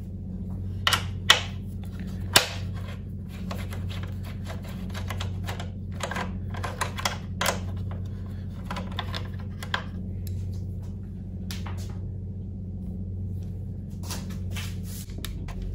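Allen key working a small fairing bolt loose: a string of irregular metallic clicks and ticks, a few sharper ones in the first couple of seconds, over a steady low hum.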